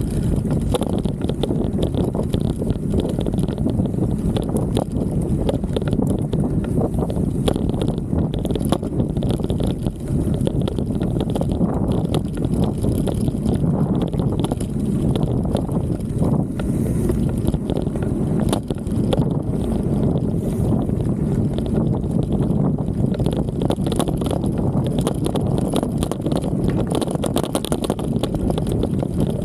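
Mountain bike ridden over a rough dirt trail, heard through a handlebar-mounted camera: steady wind noise on the microphone with constant rattling and knocking from the loose camera mount and the bike over the bumps.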